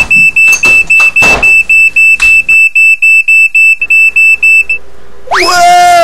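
Smoke alarm beeping rapidly with a high tone, about four beeps a second, set off by burning potatoes. The beeping stops about five seconds in, and a loud pitched sound follows, rising sharply and then sliding down.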